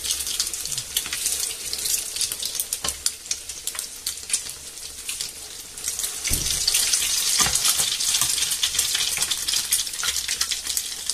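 Soaked slices of bread (torrijas) shallow-frying in hot oil in a pan: a steady crackling sizzle full of quick spatters. About six seconds in there is a dull knock as a fresh egg-and-milk-soaked slice is laid in with tongs, and the sizzling is a little louder after it.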